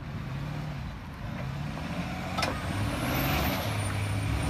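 Full-size pickup truck's engine running under load as it pulls another pickup on a tow line, growing louder after about two seconds. A sharp crack about two and a half seconds in, and a high whistle that rises and falls near the end.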